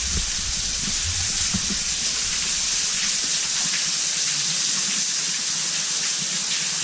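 Underground waterfall pouring down a cave pit: a steady, loud hiss of falling and splashing water, with a few low knocks in the first couple of seconds.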